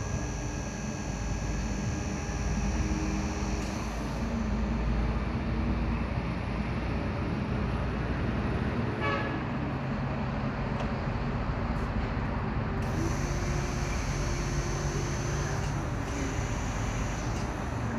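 CPD10E small electric forklift running as it is driven and manoeuvred: a steady motor hum and rumble with a few faint tones coming and going.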